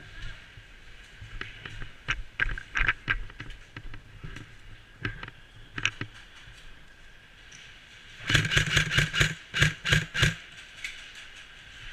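Airsoft guns firing: scattered single shots, then a rapid two-second burst of automatic fire about eight seconds in.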